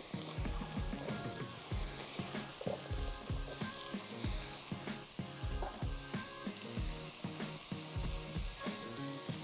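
Onion and chopped potatoes frying in vegetable oil in a pot: a steady sizzle. Background music with a steady beat plays under it.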